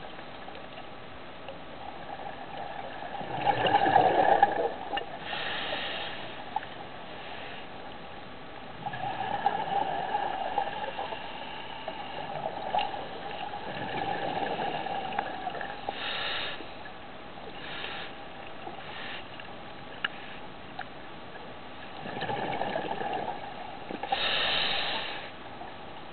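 Scuba diver breathing through a regulator underwater: exhaled bubbles rush out in long swells a few seconds apart, the loudest a few seconds in, with short hisses of inhalation between them and a faint steady hum underneath.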